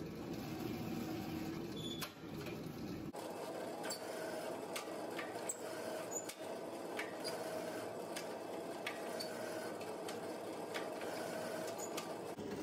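Electric roller mill running with a steady hum as a hot billet is rolled down between its rollers, with light ticks scattered throughout.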